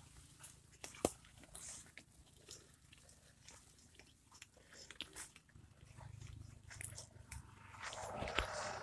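Footsteps and the brushing of soybean plants as people walk along a narrow grassy field path: faint, irregular crunches and swishes, with a louder stretch of rustling near the end.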